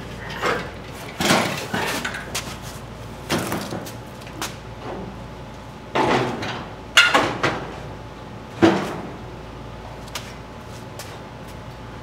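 Car body's front end being handled and fitted against the body: a string of clunks, knocks and scraping rattles, about eight in the first nine seconds, the loudest near seven and nine seconds in.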